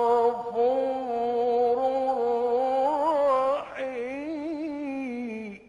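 A male Quran reciter's voice in a long, drawn-out melodic phrase of recitation, the pitch wavering and turning in small ornaments. It breaks briefly about two-thirds of the way through, resumes, and stops just before the end.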